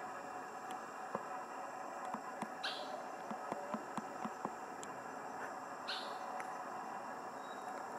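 A red-necked crake foraging in dry leaf litter: a scatter of soft ticks and rustles as it picks through the leaves. Two short, high chirps come about three seconds apart, over a steady high background hum.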